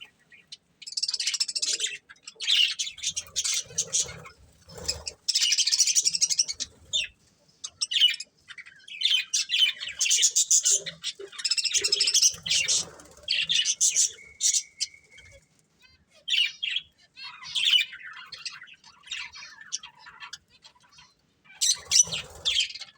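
Budgerigars chirping and chattering in repeated bursts of fast, high warbling, with a short steady whistle about two-thirds of the way through.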